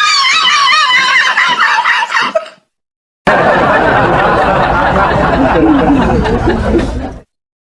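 Laughter in two stretches: a very high, wavering squealing laugh for about two and a half seconds, then, after a short silent gap, lower laughter for about four seconds that cuts off abruptly.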